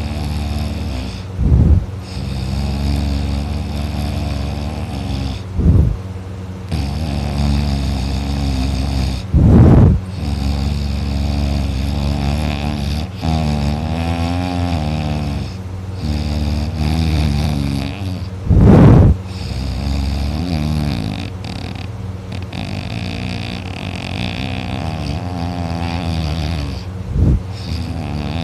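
A person in heavy sleep snoring, with long low moaning sounds that rise and fall in pitch. Several brief, much louder bursts break in, the strongest about ten and nineteen seconds in.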